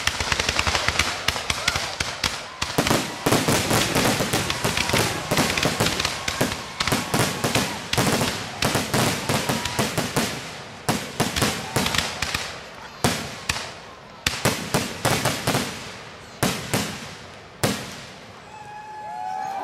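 Aerial fireworks going off: a dense barrage of shell bursts and crackling, thinning to single bangs a second or two apart over the last several seconds.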